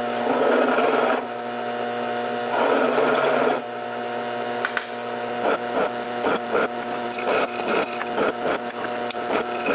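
A motor-driven shop tool runs with a steady hum while steel brackets are deburred. There are two louder grinding stretches in the first few seconds, then a run of quick, even rubbing strokes.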